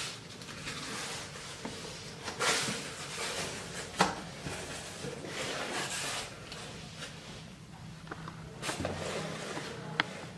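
A package being opened and handled by hand: scraping and rustling of the packaging, with a sharp click about four seconds in and another near the end.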